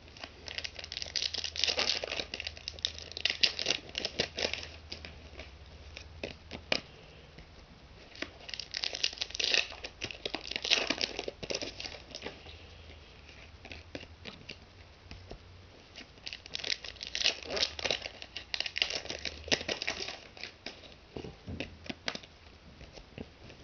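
Foil trading-card packets being crinkled and torn open by hand, with cards handled and slid against each other. The crinkling comes in three spells of a few seconds each, with quieter handling between.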